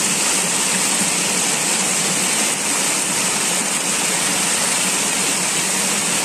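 Shallow stream water rushing and splashing steadily over rocks.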